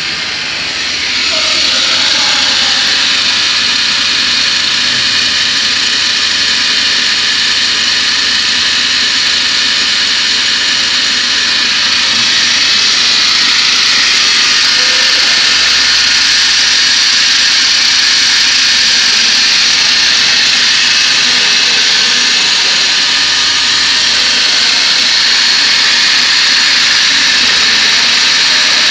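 CNC router's spindle running at speed with its saw-blade head, a steady high-pitched whine. It comes up to full level over the first couple of seconds and grows a little louder about twelve seconds in.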